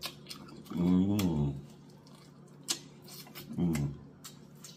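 A person eating fried chicken necks close to the microphone: wet lip smacks and chewing clicks throughout. There is a voiced 'mmm' of enjoyment about a second in and a shorter one near the end.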